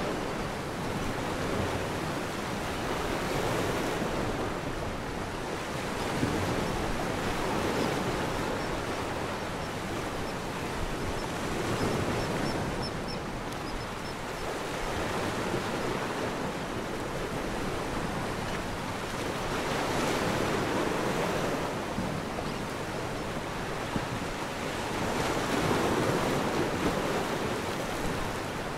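Ocean waves washing, a steady rush that swells and eases every few seconds.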